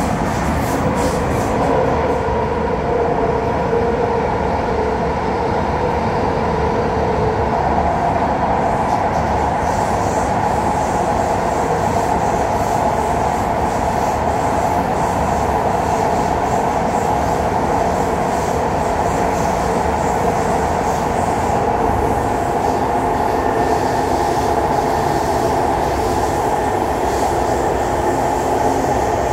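In-car running noise of a Kawasaki Heavy Industries C151 metro train under way: a steady loud rumble of wheels on rail with a hum. About a third of the way through, the hum gives way to a higher tone.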